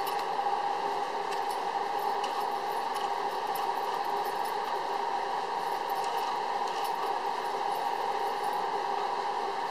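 Steady, unchanging droning hum with a few faint ticks, like a fan or other machine running.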